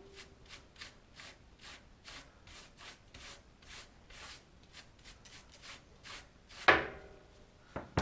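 A brush scrubbing fly ash off a cracked ceramic catalytic combustor from a wood stove, in short even strokes about three a second. Two louder knocks come near the end.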